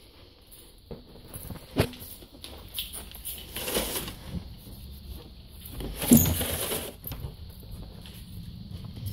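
Knocks and scraping as a wooden door is handled and pushed past: a sharp knock about two seconds in, then two longer scraping bursts, the louder one about six seconds in.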